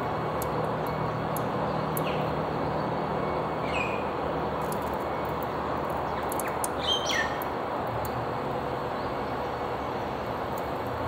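Pork belly sizzling steadily on a disposable cardboard-box charcoal grill, with a few small pops; the grill is not hot enough to char the meat. A bird chirps a few times, mostly around the middle.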